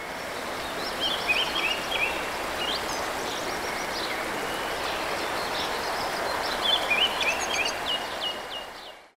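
Outdoor nature ambience: a steady rushing background noise with small birds chirping in two short bursts, about a second in and again near seven seconds. It fades out just before the end.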